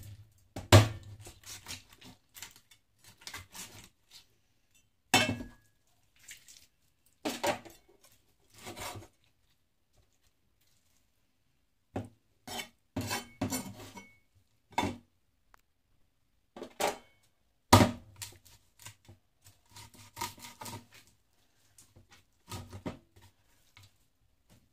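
Meat cleaver chopping through raw chicken on the bone on a cutting board: irregular sharp chops, the heaviest about a second in and again about 18 seconds in, with a pause of a couple of seconds near the middle.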